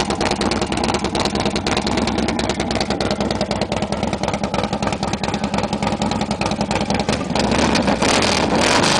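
Harley-Davidson 103-cubic-inch stroked V-twin, with Beta stroker flywheel and 10.5:1 compression, running through RB Racing exhaust pipes as a steady run of exhaust pulses. It grows louder and brighter about seven seconds in.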